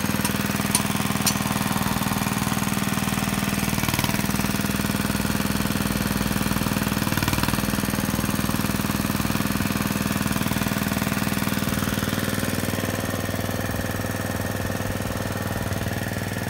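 A small engine running steadily at constant speed with a fast, even pulse, easing off slightly near the end.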